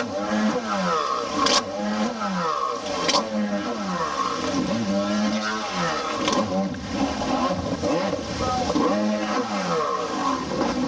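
Stand-up jet ski engine revving hard, its pitch swooping up and down again and again, about once a second, as the ski jumps and spins. A few sharp cracks cut through, near the start and again about a third and a half of the way in.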